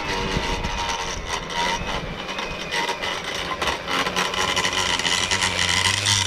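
EGO 56V power head with the 8-inch edger attachment running, its blade cutting along the lawn edge: a steady motor whine with many sharp ticks of soil and grit striking the blade and guard.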